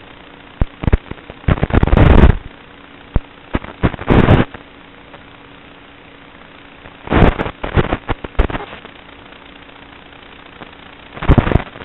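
Onboard audio from a fixed-wing FPV plane in flight: a steady hiss with a faint motor hum, broken by loud crackling bursts of noise about a second in, around four seconds, around seven to eight seconds and again near the end.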